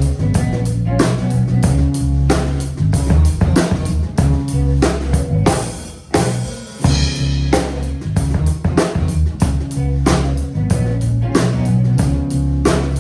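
Band music with a drum kit beating steadily, guitar, and a sustained bass line. About six seconds in the band drops out briefly, leaving a ringing cymbal, then comes back in full.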